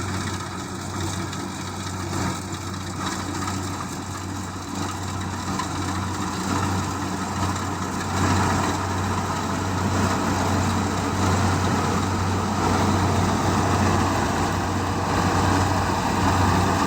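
Kubota DC-70G rice combine harvester's diesel engine running steadily, growing louder about halfway through.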